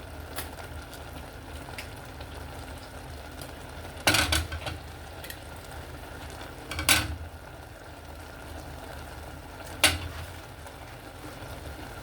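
Okra and vegetable soup simmering steadily in a pot, with three sharp knocks of a spoon against the pot about four, seven and ten seconds in.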